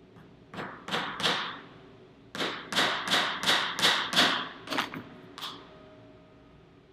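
Claw hammer tapping small finishing nails into a wooden jig on a workbench: three strikes, a short pause, then a quicker run of about seven and two last taps.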